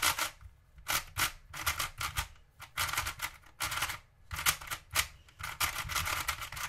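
A Rubik's Retro Cube being turned by hand: rapid clicking and clacking of its plastic layers in quick runs of turns, with short pauses about half a second in, just past two seconds and around four seconds. The loose cube turns freely.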